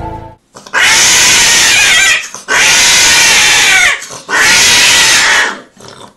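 Female cat yowling three times in long, loud, harsh cries, each lasting over a second with short breaks between. This is her cry while being mounted by a tomcat during mating.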